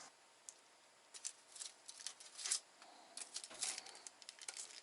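Faint, scattered rustling and light clicks, the small sounds of something being handled, a few per second in irregular clusters.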